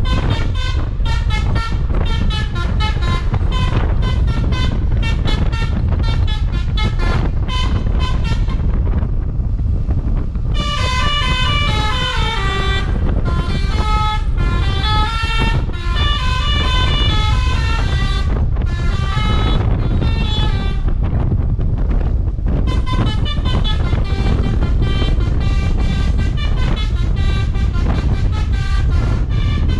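Basuri V3 telolet bus horn, a multi-trumpet air horn, playing tunes as quick runs of changing notes over a steady low rumble. The tune changes about ten seconds in, and again a little past twenty seconds.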